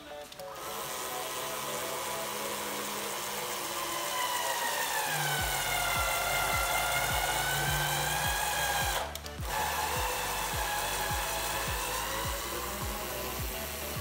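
Cordless drill-driver running as it drives a screw into the plastic jerrycan lid to fix the pump in place. Its motor whine sags in pitch under load, stops briefly about nine seconds in, then runs again. Background music with a steady beat plays throughout.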